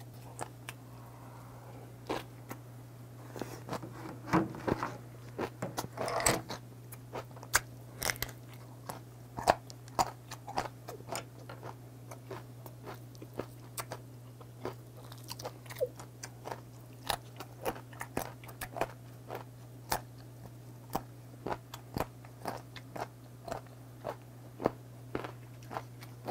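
Close-up chewing and biting on boiled beef tongue, with crunching as the teeth work through the gristly cartilage at its root: irregular wet clicks and crunches, thickest in the first third and then a few a second. A steady low hum runs underneath.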